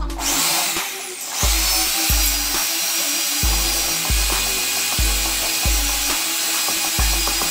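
Handheld electric drill running steadily with its bit boring into a plywood sheet, a high motor whine over the grinding of the wood. Background music with a regular bass beat plays underneath.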